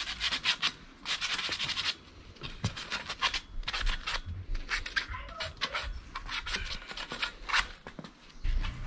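Hand sanding of a Citroen 2CV seat's tubular steel frame with a sanding block: quick back-and-forth scratching strokes in short runs with pauses, rubbing off flaking rust.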